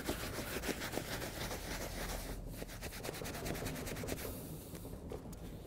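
Leather cleaning brush scrubbing foaming leather cleaner into a cowhide leather suit: a rapid back-and-forth bristle scratching and rubbing that eases off about four seconds in.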